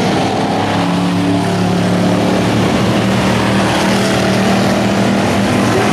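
Dirt-track stock car engines running on the oval: a steady drone of several engines holding a fairly even pitch, with no hard revving.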